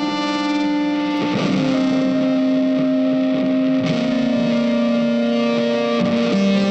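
Background music: sustained electric guitar with effects and distortion, holding long notes that change every second or two.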